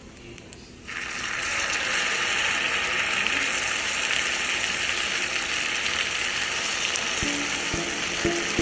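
A hot sizzling plate of beef fried rice starts sizzling suddenly about a second in, then keeps up a loud, steady hiss.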